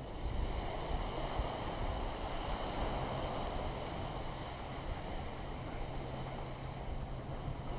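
Wind buffeting the microphone, with a steady low hum underneath.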